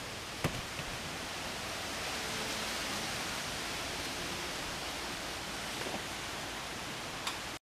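A steady hiss with a sharp knock about half a second in and a lighter one near the end, as hollow concrete blocks are picked up and set down on the ground.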